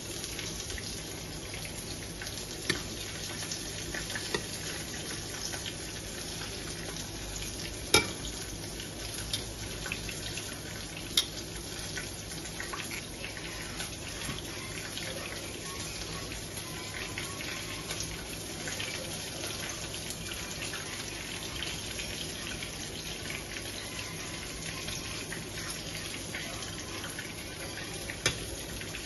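Steady sizzle of food frying in oil in a pan, with a few sharp knocks, the loudest about eight seconds in.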